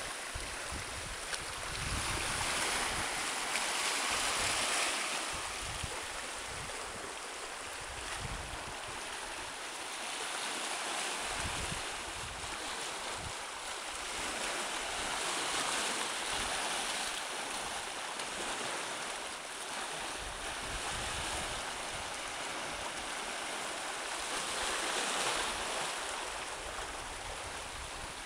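Small waves lapping and washing over granite boulders and sand at the water's edge, swelling and easing every few seconds. Gusts of wind buffet the microphone.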